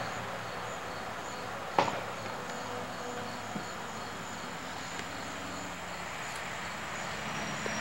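Crickets chirping in an even repeating rhythm, over a steady hiss and low hum, with a single sharp click about two seconds in.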